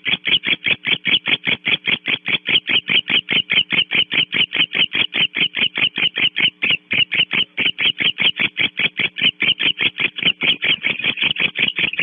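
Steady, rapid rhythmic chirping of a small animal, about five short raspy pulses a second, over a faint steady hum.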